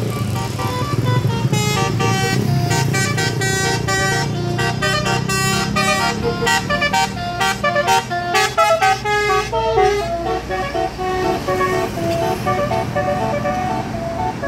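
Bus 'telolet' multi-tone musical horn playing a quick melody of stepped notes, over a low engine rumble that fades out in the first couple of seconds.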